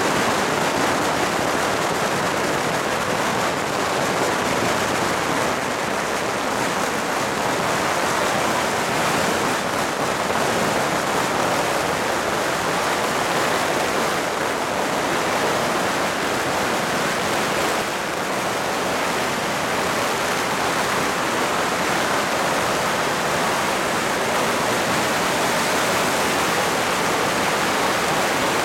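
Strings of firecrackers going off without a break, the bangs so close together that they merge into one steady, dense crackle.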